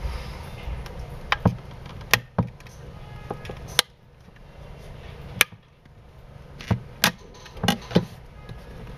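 Plastic clicks and snaps as the clip-on back cover of a Galaxy S4 clone phone is pried off, its latches letting go one by one: about ten sharp clicks, irregularly spaced, some in quick pairs.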